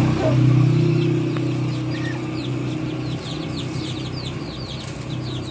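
A steady low engine hum, loudest at the start and fading over the first couple of seconds. Small birds chirp in the background in quick runs of short falling notes from about three seconds in.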